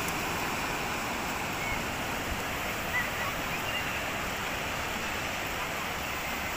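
Surf breaking and washing up a flat sandy beach, a steady rushing wash of waves.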